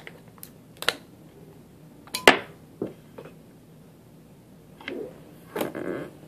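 Plastic clicks and knocks of AAA batteries being handled and pushed into a small plastic speaker's battery compartment, the loudest a sharp click a little over two seconds in. Near the end come two softer, longer rustling sounds.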